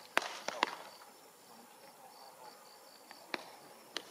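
A baseball smacks into a leather glove as it is caught near the start, followed by a couple of lighter knocks. Later a row of faint high chirps sounds, with two small clicks near the end.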